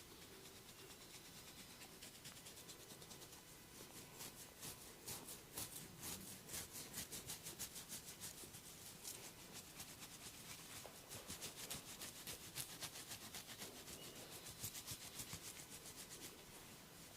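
Quiet close-up rubbing of a barber's hands during an ear and head massage, in quick even strokes that start about four seconds in and ease off shortly before the end.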